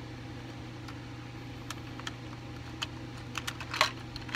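Light plastic clicks and taps as a Printoss instant photo printer's folding plastic body is opened and handled: a few scattered clicks, the sharpest one just before the end, over a steady low hum.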